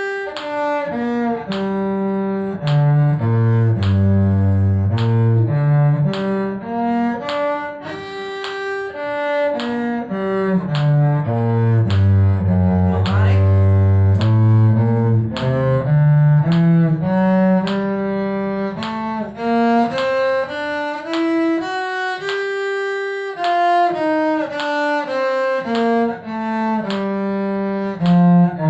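Cello bowing a two-octave scale, one even note after another, stepping down to its lowest notes and climbing back up.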